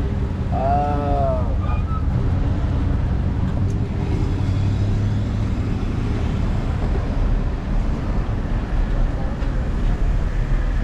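Steady low rumble of street and riding noise with a pickup truck's engine running close alongside. A short voice calls out about half a second in.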